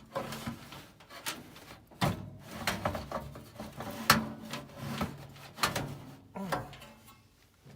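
Metal parts of a gas furnace's blower assembly being slid, scraped and knocked against the sheet-metal cabinet while being lined up: a string of irregular clunks and rubbing scrapes.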